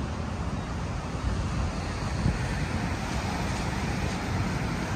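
Strong gusty wind buffeting the microphone as a steady low rumble, with breaking sea surf beneath it.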